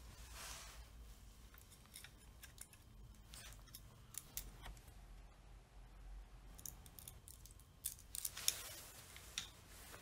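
Quiet handling sounds of wooden drumsticks being picked up from a carpeted floor and turned over in the hands: faint scattered clicks and taps, with a quicker cluster of sharper clicks near the end.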